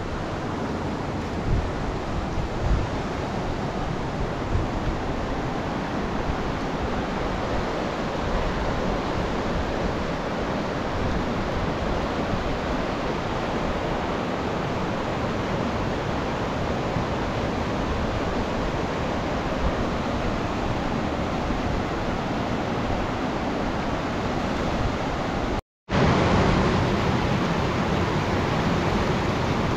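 Fast mountain river rushing over boulders in white-water rapids, a steady rushing noise. Near the end it cuts out for a split second and returns slightly louder.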